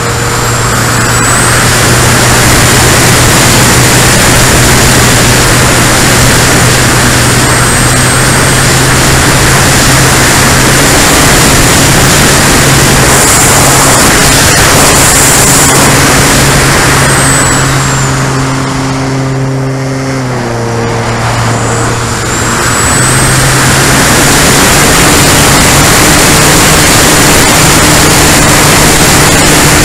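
Onboard sound of an RC model airplane's motor and propeller running hard under heavy wind rush on the camera's microphone. About 18 seconds in, the throttle eases back and the sound softens for a few seconds, then it opens up again to a steady, slightly higher pitch.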